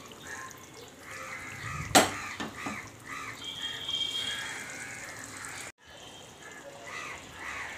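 Chicken curry simmering and bubbling in a pot, with a sharp knock about two seconds in and a couple of lighter knocks just after. Faint voices are in the background, and the sound drops out for a moment near the end.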